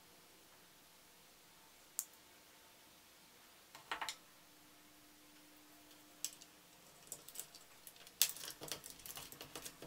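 Light plastic and metal clicks of a mechanical keyboard switch being worked with needle-nose pliers and then pressed into a hot-swap keyboard plate. There is a sharp tick about two seconds in and a short cluster near four seconds. A quick run of clicks over the last three seconds comes as the switch is seated.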